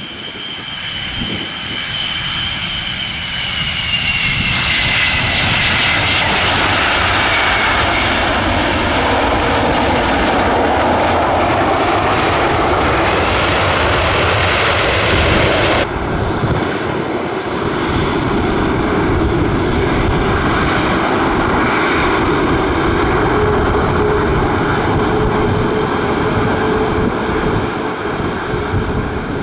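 Boeing E-6 Mercury's four CFM F108 turbofans on a landing pass: a high fan whine falls in pitch as the jet comes by and swells into a loud, steady engine roar. About halfway through the sound changes abruptly, then continues as a steady roar with a low drone that rises slightly.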